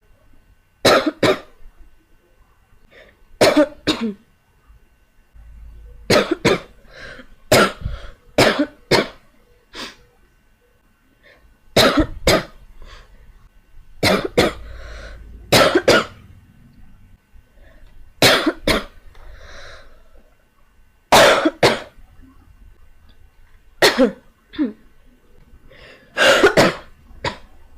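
A girl coughing over and over, in short fits of one or two coughs every couple of seconds.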